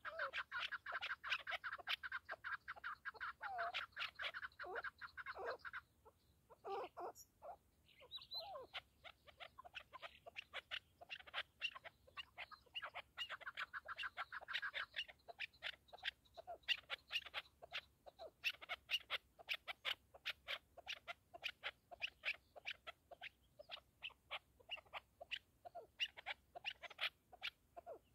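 Chukar partridge calling: a fast run of repeated chuck notes that breaks off about six seconds in and then starts up again for the rest of the time.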